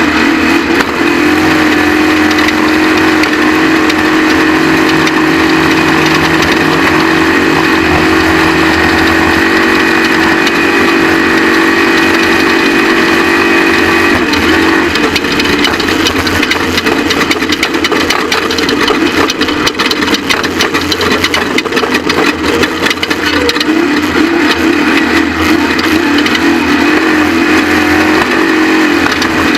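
Off-road race truck engine running loud and steady at high revs, its note shifting about halfway through, with dense rattling and knocking in the second half.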